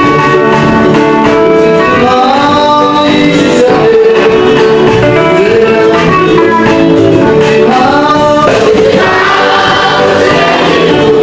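Church choir singing a gospel song in Kinyarwanda, led by a male singer on a microphone.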